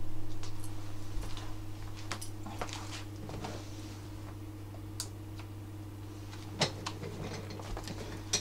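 Scattered light clicks and knocks of a person moving about at a computer desk and taking hold of an office chair, with two louder knocks in the second half, over a steady low electrical hum.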